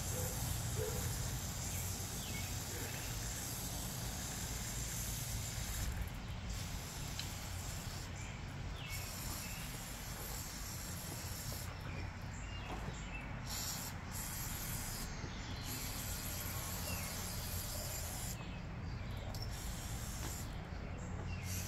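WD-40 Original aerosol can spraying with a steady hiss, in long sprays broken by several short pauses from about six seconds in.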